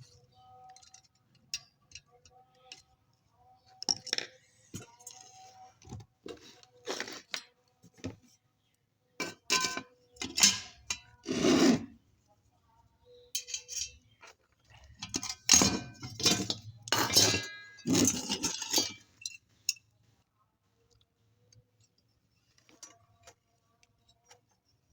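Small metal parts of an electric iron being handled and fitted during repair: irregular clinks, knocks and scrapes, busiest from about nine to nineteen seconds in.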